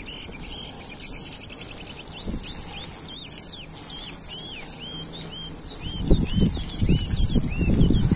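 Garden hose spray nozzle hissing steadily as it showers water onto moist potting soil in a plastic tray, with a bird repeating short chirping calls throughout. Heavier low knocks and rumbles come in for the last two seconds.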